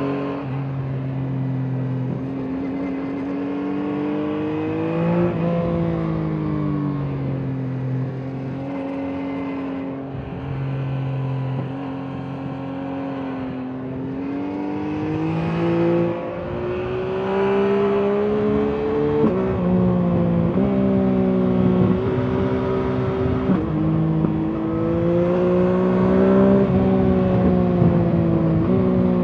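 Yamaha MT-09 SP's three-cylinder engine through its stock exhaust, heard from the rider's seat while riding. The note climbs and falls with the throttle through the bends and drops suddenly in pitch several times in the second half.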